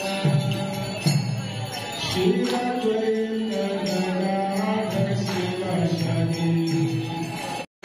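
Devotional chanting: voices singing a kirtan melody over jingling percussion of bells and hand cymbals. The sound cuts off abruptly for a moment near the end.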